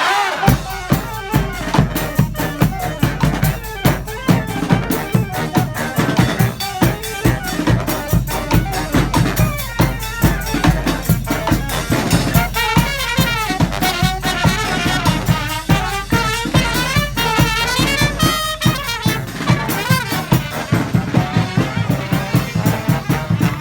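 Street brass band playing an up-tempo tune: horns such as trumpets and saxophones over a steady, driving drum beat.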